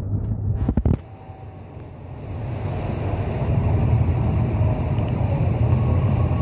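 Bus cabin rumble: the bus's engine and road noise, a steady low drone. A short rattle sounds just before a second in; the drone then dips and grows louder from about two seconds in, holding steady to the end.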